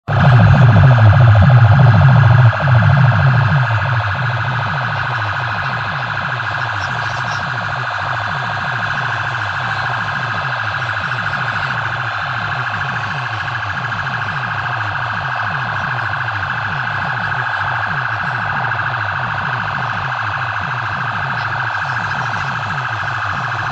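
Siren-like electronic sound played at very high volume through a competition DJ sound-box rig, with a fast-repeating falling bass sweep underneath. It is loudest for the first couple of seconds, then holds steady a little lower.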